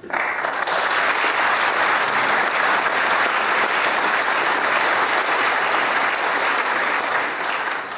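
A large audience applauding steadily. The applause starts all at once and dies away near the end.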